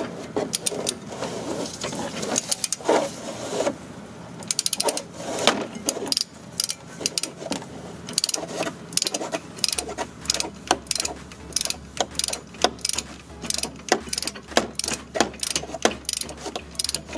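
Ratchet wrench clicking in short runs as the handle is swung back and forth, running a rear brake caliper bracket bolt in to seat it before torquing.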